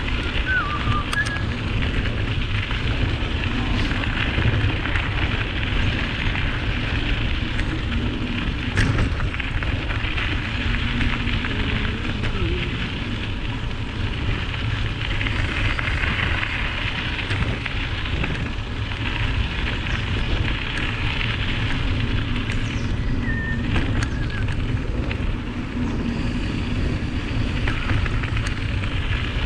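Mountain bike rolling down a dirt trail: a steady wind rumble on the GoPro's microphone over the crackle of tyres on dirt and gravel, with scattered sharp clicks and knocks.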